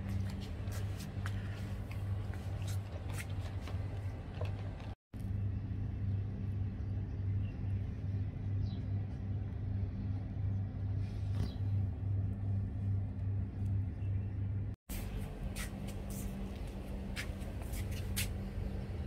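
A steady low hum with a slight pulsing, cut by two brief dropouts about five and fifteen seconds in, with a few faint ticks over it.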